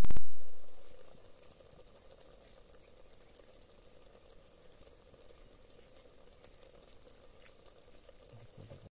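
A deep boom at the start that fades away over about a second and a half, then faint steady sizzling and bubbling of yogurt tikhari simmering in a clay pot over a wood fire.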